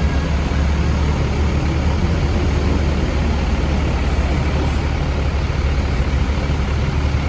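Large diesel bus engine running with a steady low rumble, with road noise around it.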